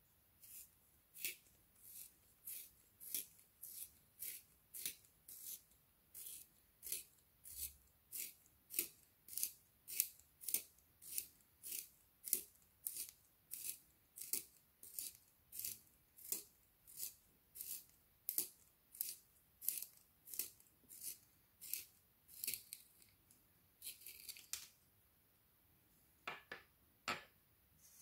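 Wooden pencil being turned in a small plastic hand-held pencil sharpener: the blade shaves the wood in a steady run of crisp scraping strokes, about three every two seconds. The strokes stop a few seconds before the end, followed by two light taps.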